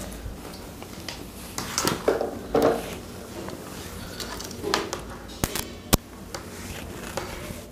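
Rustling and light knocking of insulated wires being handled on a wooden table, with two sharp clicks a little past the middle, about half a second apart, as a series test lamp is connected and lights.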